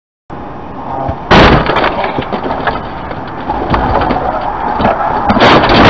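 Cartoon fight sound effect: a loud, continuous brawl din crowded with crashes and knocks. It starts a moment in and jumps louder about a second in.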